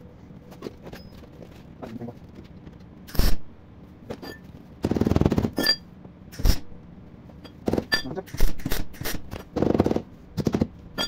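MIG welder laying short tack welds on a steel wheel-arch repair panel: a string of sharp crackling bursts, most well under a second, with one longer burst about five seconds in.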